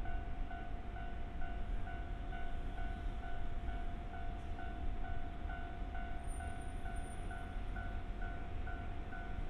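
Japanese level-crossing warning bell ringing in a steady, even repeat of about two dings a second, over a constant low rumble.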